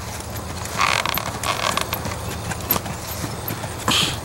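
Hoofbeats of a Tennessee Walking Horse walking under a rider, a few uneven beats.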